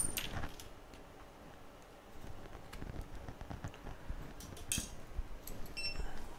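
Quiet workbench handling: a sharp click, then scattered light clicks and taps of small tools being handled, with a brief hiss about two thirds of the way in.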